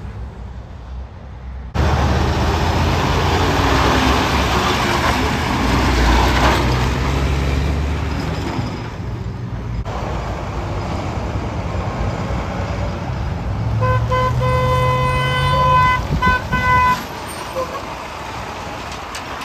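Concrete mixer truck's diesel engine running loudly as the truck moves, then a truck horn: one long blast of about two seconds followed by two short toots.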